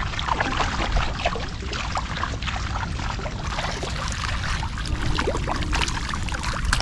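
Shallow water over tidal mud sloshing and splashing as someone wades through it, with many small splashes and drips. Near the end a caught fish thrashes, spraying water.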